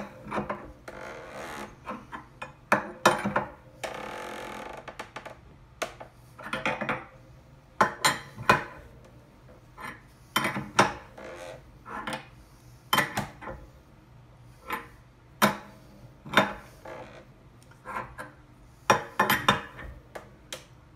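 A wrench working the nuts on the steel threaded tension rods of a wooden wire-stretching jig, with irregular sharp metallic clicks and clinks every second or two and a longer scraping stretch about four seconds in. The jig is groaning under the heavy tension of the stretched stator wires.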